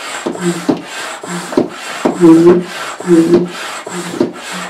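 Hand-operated stand pump stroking steadily, about two strokes a second, each with a rush of air and a short low hum, as it inflates the side chamber of an inflatable kayak.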